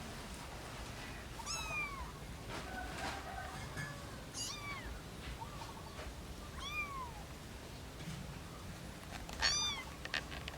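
A kitten mewing: four short, high-pitched calls a few seconds apart, each rising then falling in pitch, the last one the loudest.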